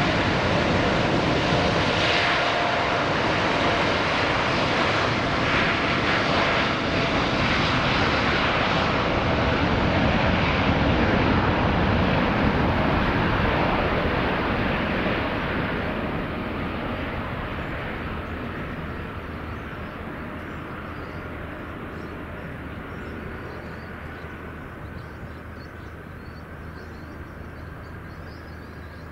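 Airliner taking off, its engines at takeoff power: a loud steady jet noise for about the first half, then fading steadily as the aircraft climbs away.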